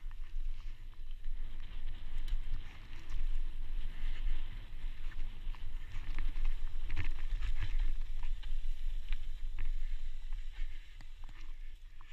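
Mountain bike riding down dry, loose dirt singletrack: wind rumble on the bike-mounted camera's microphone, tyres crunching over dirt and gravel, and the bike rattling and clicking over bumps. It gets quieter near the end as the bike slows.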